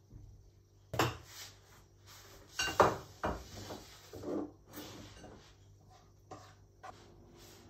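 Handling noise: a series of sharp knocks and clatters with short scrapes, the loudest about a second in and a cluster around three seconds in, then a few lighter taps.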